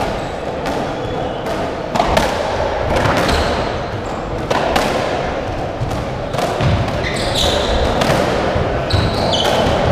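Racketball rally on a squash court: the rubber ball cracks off the racquet strings and the walls about once a second, echoing in the court.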